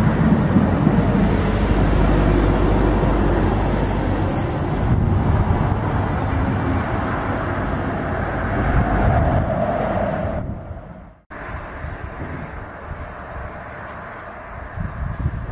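Freight train carrying lorries on low-floor wagons rolling past close by, its wheels running on the rails in a loud, steady rumble that eases off as the end of the train goes by. A little over ten seconds in the sound cuts off abruptly, leaving much quieter wind noise.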